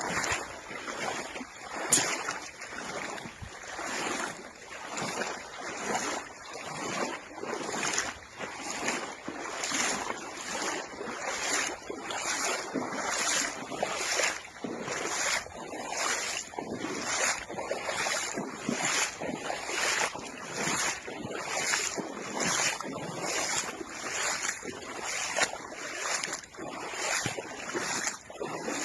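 Strong storm wind buffeting the microphone over choppy water, with waves washing; the rushing noise surges in an even pulse about every two-thirds of a second.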